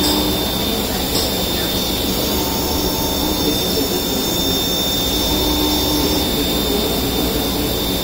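CNC lathe turning a threaded brass bushing: the spindle spins the part while the tool cuts under coolant spray, a steady machine noise with a constant high whine.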